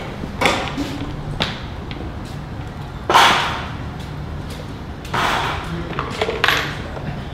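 Plastic engine-bay parts being handled over the engine: a series of knocks, clunks and scraping rustles, the loudest about three seconds in.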